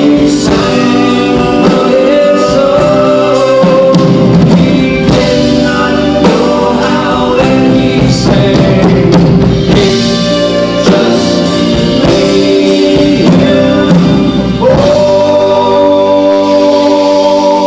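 Live band music with singing: violin, acoustic and electric guitars, keyboard and a drum kit playing together. About fifteen seconds in, a note slides up and is held.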